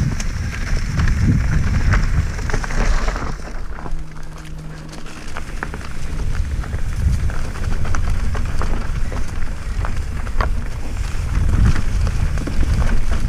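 Mountain bike riding down a rough, rocky singletrack: tyres crunching over stones and loose ground, with sharp knocks and rattles from the bike and wind rumbling on the microphone. The noise eases for a moment about four seconds in, then picks up again.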